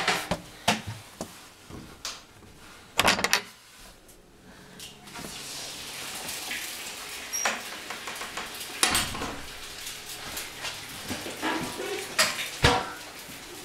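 Knocks and clunks of a door and its fittings being handled, in a string of sharp strokes, with a loud cluster about three seconds in and more near nine and twelve seconds. A steady hiss sets in about five seconds in.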